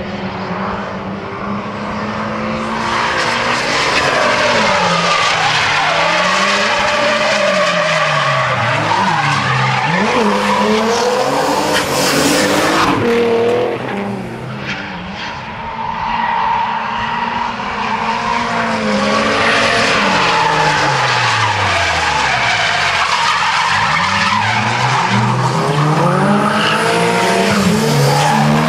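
Drift cars sliding through corners: engines revving hard, their pitch rising and falling again and again as the drivers work the throttle, over a continuous screech of spinning, sliding tyres. It eases briefly about halfway through, then builds again.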